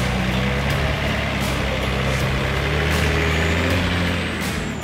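A 4WD's engine running steadily at low revs as the vehicle crawls slowly past along a rough track.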